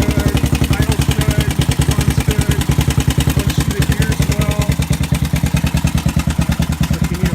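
2002 Honda TRX400EX quad's single-cylinder four-stroke engine idling through an aftermarket HMF exhaust, with a steady, even pulse.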